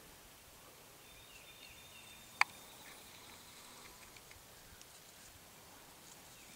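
Quiet woodland-edge ambience with faint high bird or insect calls, broken once by a single sharp click a little over two seconds in.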